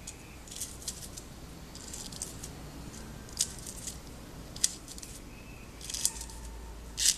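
Plastic pearl beads clicking lightly against each other and the needle as they are strung onto nylon thread, a few irregular small clicks.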